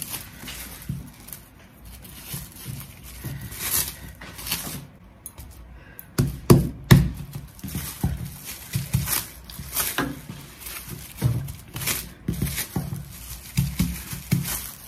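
Plastic cling wrap crinkling and rustling as hands press and pat shortbread dough into a brick on a table, with irregular soft thumps of the dough against the tabletop.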